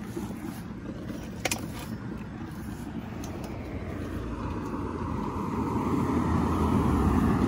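A car driving past on the road, its noise building steadily over the second half and loudest near the end. A single sharp click sounds about a second and a half in.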